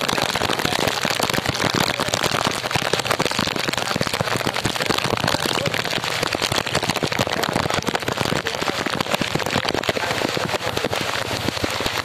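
Heavy downpour: a steady, dense patter of raindrops striking close by, made of many sharp individual hits.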